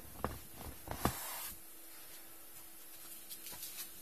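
Hand pressing and rubbing the taut vinyl of an inflated Intex Explorer 100 boat: a few soft knocks and creaks in the first second and a half, ending in a brief rustle.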